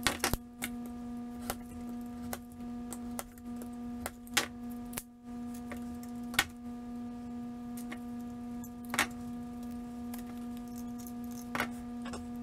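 Irregular sharp clicks and snaps of a wooden paint stick being cut into small pieces with a utility knife and snips, over a steady electrical hum.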